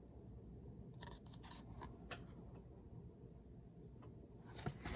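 Near silence: faint room hum with a few soft clicks and rustles from a hardcover picture book being handled, the sharpest clicks near the end.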